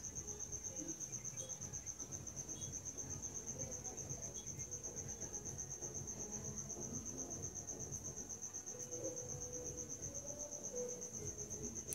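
A steady high-pitched trill, pulsing rapidly and evenly without a break, over faint room noise.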